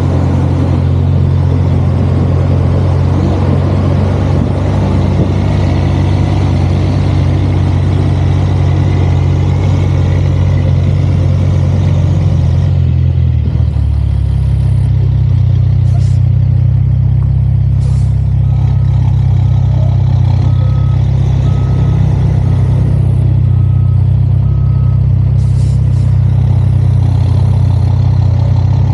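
Heavy diesel truck engine running steadily with a deep, even drone. About halfway through the higher-pitched noise over it drops away, and later a row of faint short beeps sounds about once a second.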